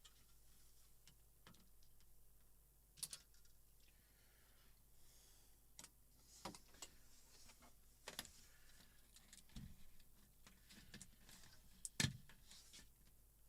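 Faint, scattered clicks and taps from TV panel parts being handled during disassembly, with the loudest knock near the end and another about three seconds in.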